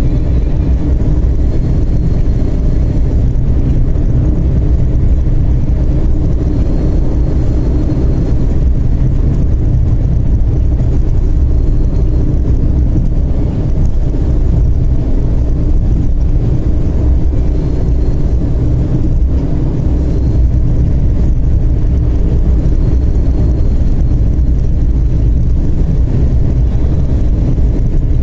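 Turbodiesel (TDI) car cruising at highway speed: a steady, loud low rumble of engine and road noise, with a faint high turbo whistle that comes and goes every few seconds.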